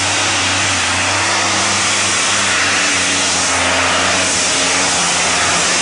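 Modified pulling tractor's engine running loud and steady at full throttle under the load of a weight sled, its pitch sagging slightly as the pull goes on.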